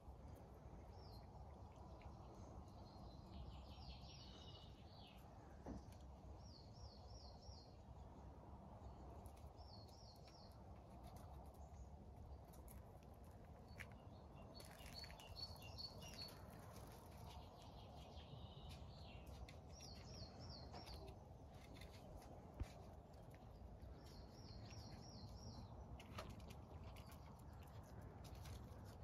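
Faint outdoor quiet with a small bird singing a short phrase of three or four quick high notes, repeated every few seconds. There is one sharp tap about two-thirds of the way in.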